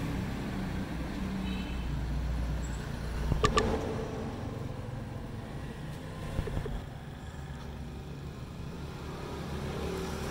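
A motor vehicle engine running steadily at a low pitch, with two sharp clicks about three and a half seconds in.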